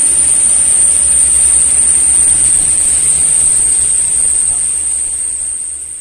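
A loud, steady, high-pitched insect drone over the hiss of heavy rain and low traffic rumble on a wet road, the drone fading away over the last second.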